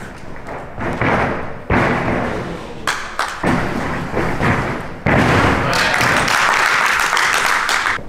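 Repeated thuds of bare feet landing acrobatic tricks on a carpeted gym floor, with people's voices in the background.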